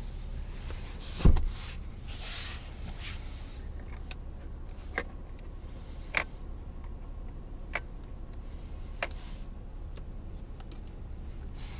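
Inside the rear cabin of a 2020 Lexus ES 350, a heavy thump sounds about a second in, followed by a brief rustle. Then come five sharp clicks, about one to one and a half seconds apart, as a hand works the rear-console air vent controls, over a low steady hum.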